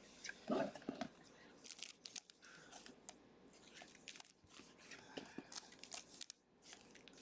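Faint crinkling and tearing of a plastic trading card pack wrapper being opened by hand, a scatter of small crackles and clicks.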